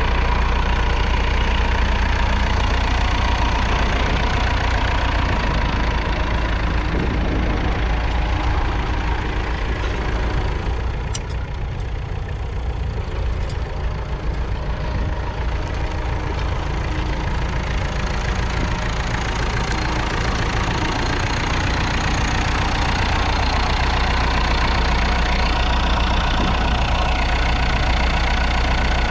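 1963 Massey Ferguson 65's 3.3-litre four-cylinder diesel engine running steadily. It drops a little in level from about a third of the way in, then comes back up.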